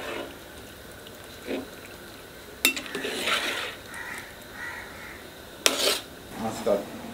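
Long steel ladle stirring basmati rice through boiling water in a large metal biryani pot, scraping quietly and clanking sharply against the pot twice, a few seconds apart.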